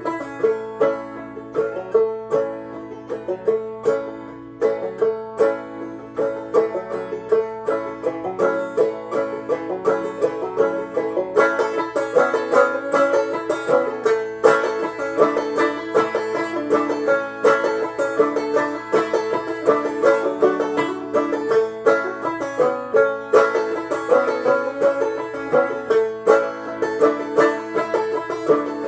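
Clawhammer banjo playing an instrumental break: a quick run of plucked notes over a steady droning note, getting fuller and brighter about eleven seconds in.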